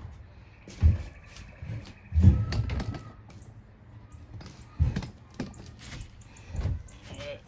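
Hand tools and small engine parts being handled: about five separate knocks and clicks, the loudest about two seconds in.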